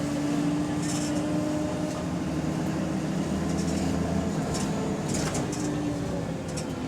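Diesel engine of a double-decker bus running under way, heard from inside the bus as a steady drone with a humming tone that shifts lower about two seconds in. There are a few short hisses. The uploader says the bus is in limp mode with a bad turbo.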